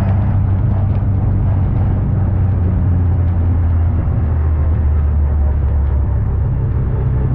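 MGA race car's four-cylinder engine running at low, fairly steady revs, heard from inside the car. The engine note drops a little about three seconds in.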